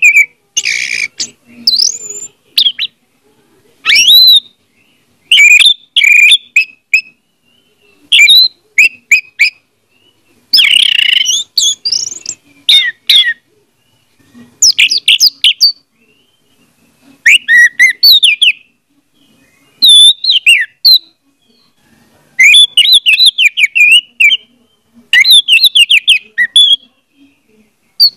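Orange-headed thrush singing: rapid phrases of varied, sliding whistled notes, each burst lasting a second or two with short pauses between them.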